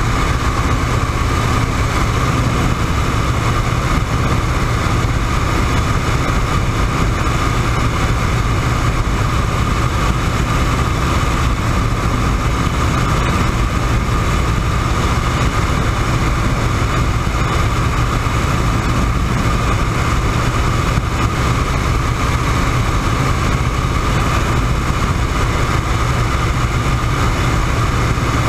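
WACO YMF-5 biplane's radial engine and propeller running steadily at cruise power in flight, with wind rushing past the open cockpit.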